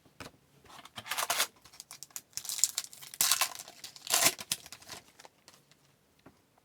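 Foil hockey card pack wrapper being torn open and crinkled by hand, in several short crackling rips over about four seconds, then it goes quiet.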